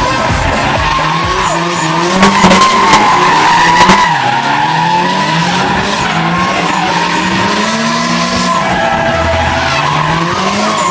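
Two drift cars sliding in tandem, their engines revving up and down while the tyres screech steadily. A few sharp bangs come about two to four seconds in.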